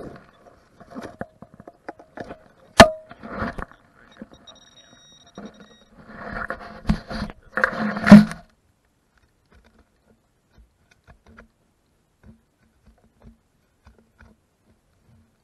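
Digging in soil with a hand digger: rough scraping and crunching of dirt and turf in irregular bouts, with one sharp click about three seconds in. After about eight seconds the digging stops, leaving only a few faint ticks.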